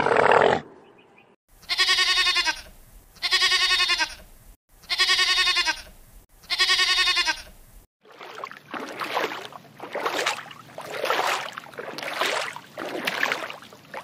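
An animal bleating four times, each call about a second long on a steady pitch with short silences between. Then about six breathy, whooshing sounds rise and fall in turn.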